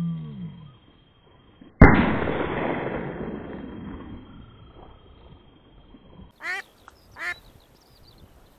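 A duck quacks, then about two seconds in a single loud shotgun shot goes off and its echo rolls away over a few seconds. Two more quacks come near the end.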